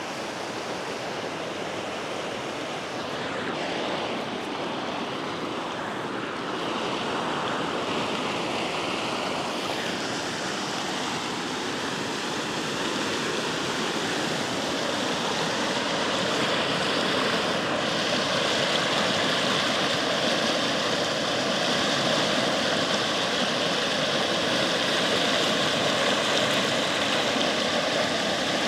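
A steady rushing noise, with a motor's hum coming in about halfway and growing slowly louder.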